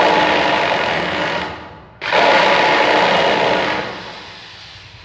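Handheld electric drill-driver running in two bursts of about two seconds each, backing screws out of a metal cutoff saw's housing; each burst dies away at its end.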